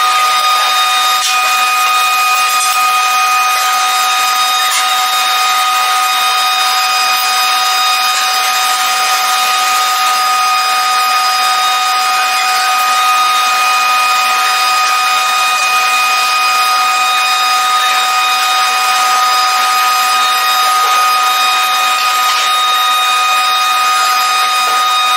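A metalworking power tool running steadily, a high whine over a hiss that never breaks or changes pitch.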